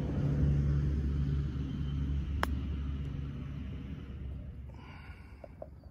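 A golf club strikes the ball once, a single sharp click about two and a half seconds in, on a short chip shot. Under it a low engine rumble is heard, fading away over the next few seconds.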